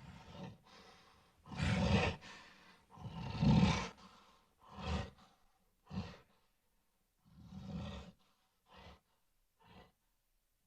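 King Kong sound effects: a giant ape's heavy breaths and huffs, a string of separate exhalations with the longest and loudest about two and three and a half seconds in, then shorter, fainter ones toward the end.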